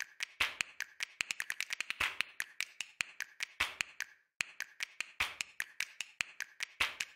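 Rapid, uneven run of sharp clicks and taps, the percussive sound effects of a video intro, with a brief break a little past halfway.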